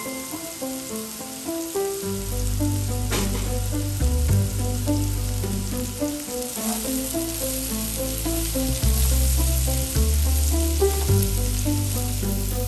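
Food frying in a pan, a steady sizzle under background music, with a bass line that comes in about two seconds in.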